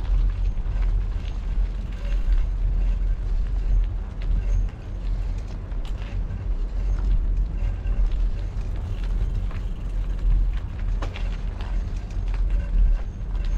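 Wind buffeting the microphone of a camera on a moving bicycle: a continuous low rumble that swells and dips, with a few faint clicks and rattles.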